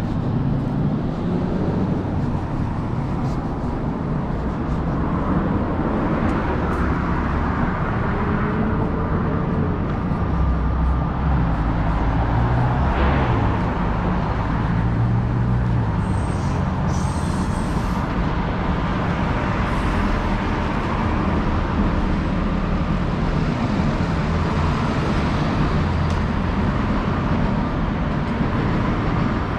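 City road traffic: a steady rumble of cars and buses, with one vehicle passing close about halfway through.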